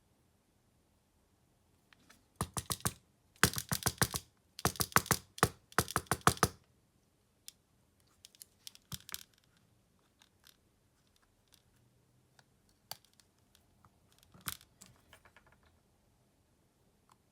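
Small hand tools working on a smartphone's plastic and metal parts during disassembly. There are four runs of rapid clicking about two to six seconds in, then scattered faint clicks and one shorter run of clicks near the end.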